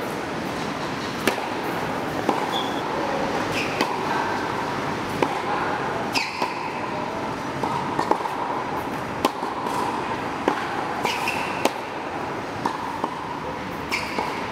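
Tennis rally: sharp racket strikes on the ball and ball bounces on a hard court, about one every second or so, over a steady background noise.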